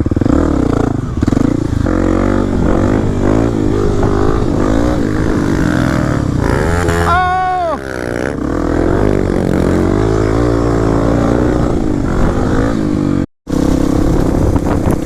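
Kawasaki KLX300 dirt bike's single-cylinder four-stroke engine running under varying throttle, its pitch shifting up and down; about seven seconds in it revs sharply up and drops back. The sound cuts out for a moment near the end.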